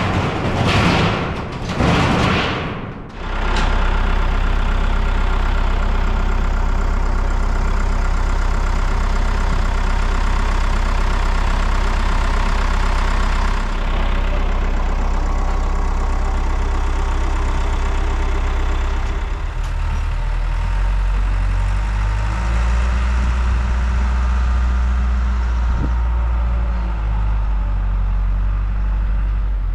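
A large engine running steadily with a low drone, its sound shifting about twenty seconds in. Three loud noises come first, in the opening few seconds.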